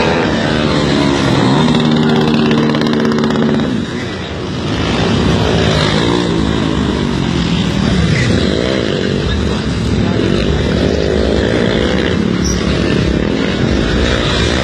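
A vehicle engine revving up and down repeatedly, its pitch rising and falling several times, with a brief drop in loudness about four seconds in.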